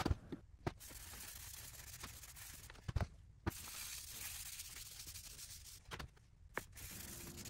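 Faint rubbing of a cloth rag wiping oil finish onto a wooden box, with a few light knocks as the box is handled and set down on the bench.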